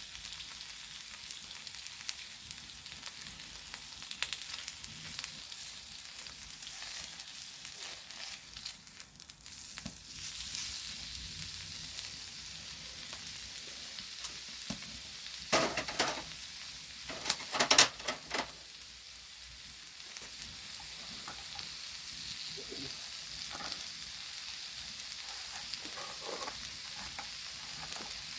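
Pork belly and intestines sizzling in their fat on a hot flat stone griddle, a steady crackling hiss. Two louder bursts come a little past halfway.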